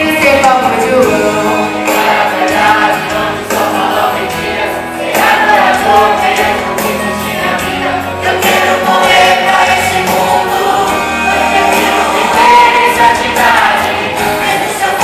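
Mixed teenage choir singing a Portuguese-language gospel song together, with instrumental accompaniment.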